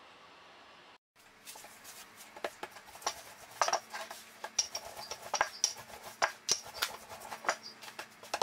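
Hands patting and pressing a floured dough ball flat on a wooden board: a run of irregular taps and knocks that starts about a second in.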